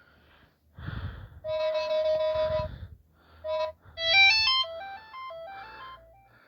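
Motorola Droid Turbo ringtone playing: an electronic melody with a held note, then a quick run of notes that climbs and steps back down, fading away.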